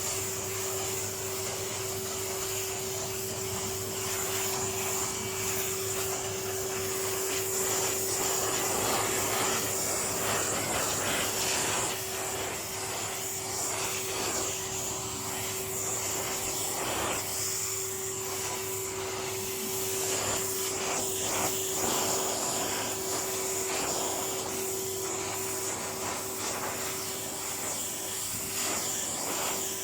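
Vacuum cleaner running steadily over a silk carpet, with a constant motor whine under the rushing air; the level swells and dips a little as the cleaner is worked.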